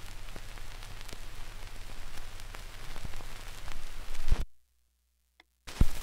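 Surface hiss and crackle of a 1941 Keynote 78 rpm shellac record between tracks, with scattered clicks. About four and a half seconds in it cuts to dead silence, then a sharp thump a second later and the crackle comes back.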